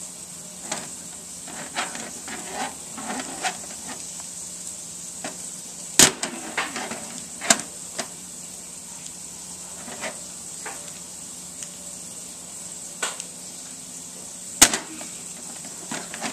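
Plastic wrestling action figures handled and slammed onto a toy wrestling ring: scattered light clicks and taps, with two louder knocks about six seconds in and again near the end, over a steady hiss.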